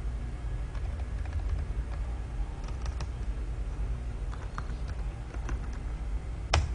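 Typing on a computer keyboard: a few scattered keystrokes, then one sharper, louder click near the end, over a steady low hum.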